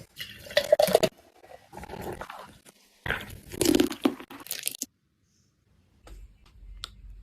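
Crunching and clattering from chocolate milkshake preparation, coming in bursts with sharp clicks, then stopping for about a second before a few faint clicks.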